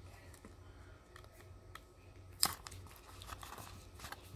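Faint crinkling and rustling of a clear plastic binder sleeve page as a baseball card is slid into one of its pockets, with one short, sharper crackle about halfway through.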